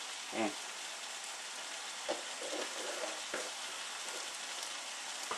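Ground beef and mushrooms sizzling steadily in a frying pan, with a few faint knocks of stirring. A short falling tone sounds about half a second in.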